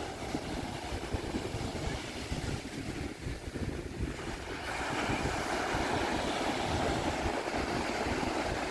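Sea surf breaking and washing up a sandy beach, with wind buffeting the microphone. The wash of the waves grows louder about halfway through.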